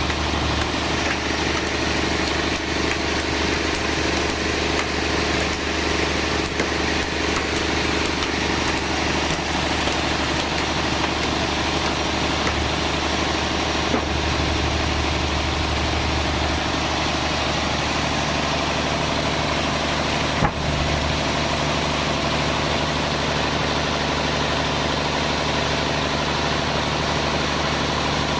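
Sawmill band saw machinery running steadily with an engine-like hum, with one sharp knock about twenty seconds in.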